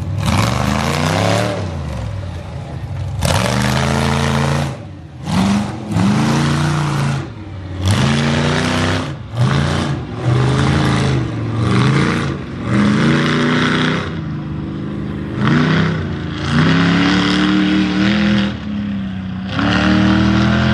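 Mega truck's engine revved hard over and over, its pitch climbing with each throttle burst and dropping back, about ten revs one to two seconds apart.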